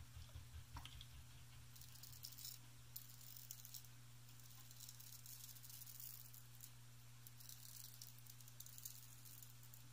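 Faint scraping of a Wade & Butcher 7/8 full-hollow straight razor cutting stubble on the chin, in a few short strokes, over a steady low hum.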